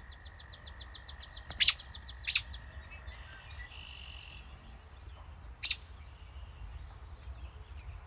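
Small bird singing a fast trill of repeated high down-slurred notes, with three sharp, loud chip calls, two in the first few seconds and one more about halfway. A faint steady high tone runs under the trill and stops partway through.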